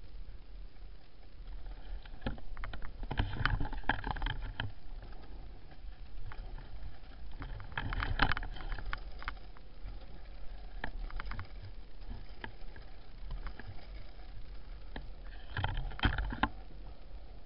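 Freebord wheels rolling down asphalt with a steady low rumble. Three times, about 3 s in, around 8 s and near the end, there are bursts of louder scraping and clattering clicks.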